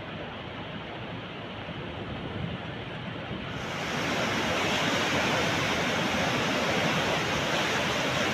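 Steady rushing of fast-flowing water, growing louder and brighter about three and a half seconds in.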